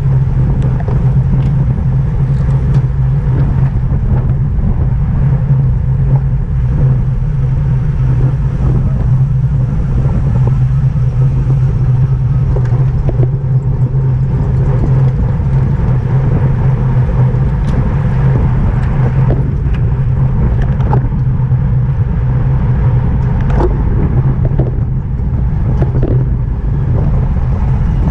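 Loud, steady wind rumble on a microphone moving at racing speed, with a few faint clicks scattered through it.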